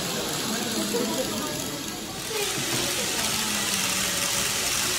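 Steady rolling hiss of an N-gauge model train running on a layout's track. The hiss grows brighter about two seconds in.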